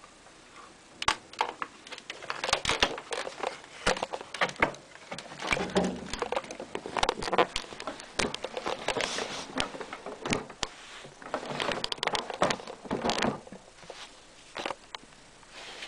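Handling noise close to the microphone: irregular clicks, scrapes and rustling that start about a second in and come thickly for most of the time.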